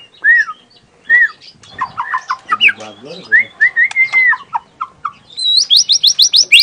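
Young white-rumped shama (murai batu) singing: a few clear arched whistles, then a varied phrase with a longer held note, and near the end a fast run of rising high notes repeated several times a second, the rapid-fire 'tembakan' of its song.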